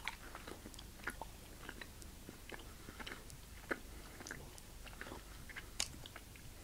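A person chewing a mouthful of York Peppermint Pattie, a soft chocolate-covered peppermint cream. It is faint, with scattered small clicks and smacks from the mouth.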